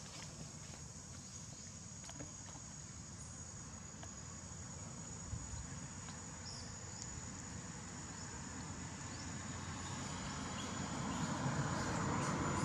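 Insects droning with one steady high-pitched note. A low rumble builds and grows louder toward the end.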